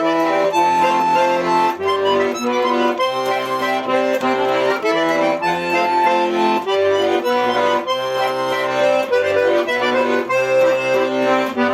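Instrumental break of a song with no singing: sustained chords under a melody line, notes changing every half second or so.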